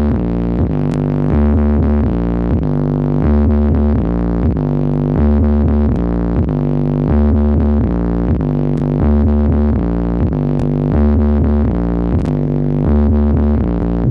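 Electronic dance music with a heavy, rhythmic bass line and synthesizer, played loud through a huge stacked parade sound system (Sriwijaya Audio).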